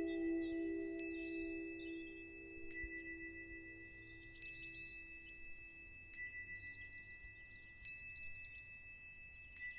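A deep chime note, struck just before, fades away over about the first four seconds. Two steady high tones and scattered short, high twittering chirps sound over it.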